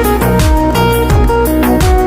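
Background music with a steady electronic beat, falling bass hits and plucked notes.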